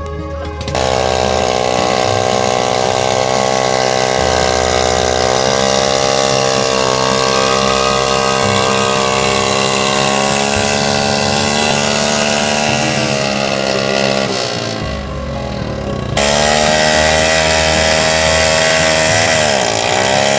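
Old motorcycle engine converted to drive a log-hauling winch, running at high revs. Its pitch sags and recovers a couple of times as it labours under the load, with a sharp dip near the end.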